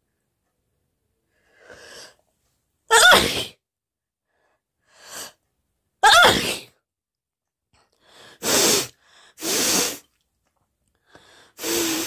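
A woman sneezing loudly again and again, about five times. The first two sneezes are voiced and each follows a short breath in. The later ones come quicker and sound more like breathy blasts.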